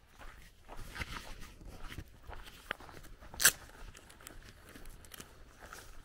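Footsteps crunching on a gravel lane at a steady walking pace, with one louder, sharper crunch about three and a half seconds in.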